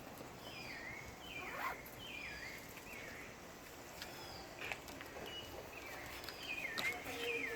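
A bird chirping repeatedly: short calls that dip in pitch and curl back up, roughly one a second, over a faint outdoor hiss, with a few light clicks.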